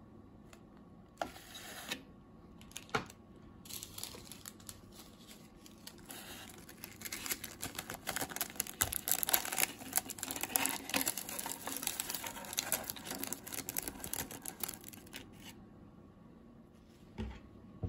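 A plastic sachet of dried ramen toppings being handled and shaken out: the packet crinkles while the dried vegetable flakes rustle and patter onto the dry instant noodles in a dense crackle that runs for about ten seconds, after a few sharp clicks at the start.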